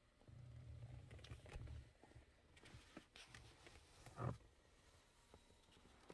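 Near silence: faint low rumbling and light clicks from a handheld camera being moved about, with one short, louder thump about four seconds in.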